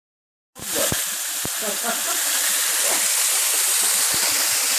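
Waterfall rushing: a steady hiss of falling water that starts abruptly about half a second in, with a few short low bumps on the microphone.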